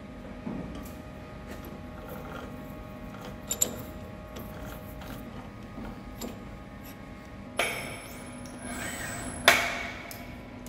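Metal-on-metal clicks and clanks as a chuck key is worked in a lathe chuck gripping a large steel strut, with a short scraping rasp and then one loud, ringing metallic knock near the end, over a faint steady workshop hum.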